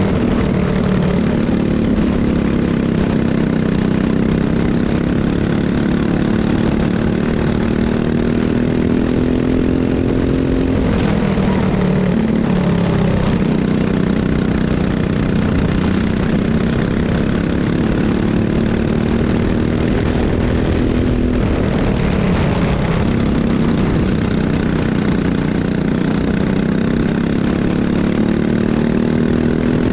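Racing kart engine running hard, its pitch climbing slowly as it revs out and then dropping sharply twice, about a third and two thirds of the way through, as the kart slows for corners before picking up again.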